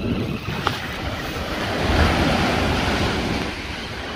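Surf breaking and washing up the beach, swelling to its loudest about two seconds in and then easing, with wind buffeting the microphone.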